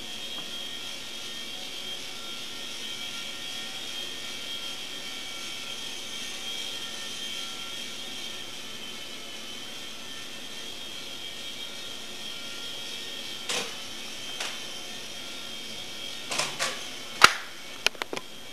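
Micro Hughes 300 RC helicopter's small electric motor and rotor running with a steady high whine. In the last few seconds there are several sharp knocks, the loudest about a second before the end.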